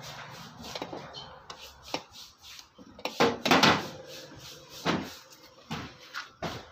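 Handling noise from repair work on an electric rice cooker's wiring: pliers and wire connectors clicking and scraping against the cooker's metal base, with a longer, louder scrape a little past three seconds in.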